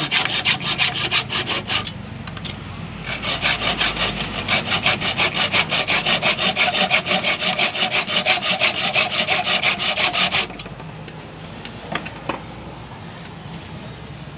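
Hacksaw cutting by hand through the chrome-plated steel shell of a Honda Dream 100 muffler in quick, even back-and-forth strokes. The sawing pauses briefly about two seconds in, resumes, and stops suddenly about ten seconds in, followed by a couple of light clicks.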